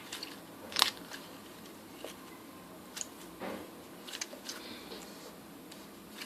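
Skifidol fluorescent slime being handled by hand, making faint scattered clicks and small pops, the loudest about a second in.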